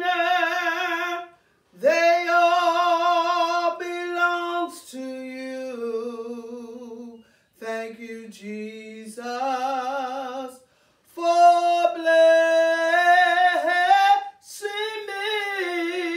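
A woman singing a gospel praise song in long held notes with wide vibrato, phrase after phrase, with short breaks for breath between them.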